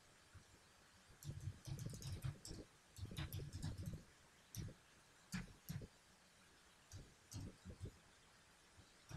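Computer keyboard being typed on: short runs of faint key clicks in several bursts with pauses between them.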